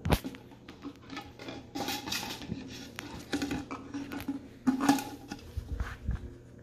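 A puppy mouthing and pushing a plastic vitamin bottle, which knocks, clatters and scrapes on a tile floor in an irregular run of knocks. The loudest knocks come just after the start and again about five seconds in.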